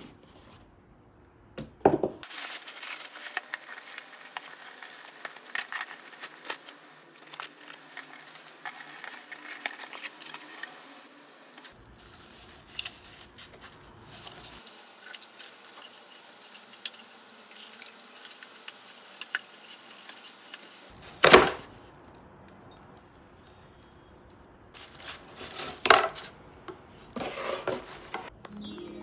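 Gift-box unboxing: black tissue paper crinkling and cardboard packaging being handled and pulled apart, a dense crackle of small rustles. Two sharp knocks stand out, about two-thirds in and again near the end.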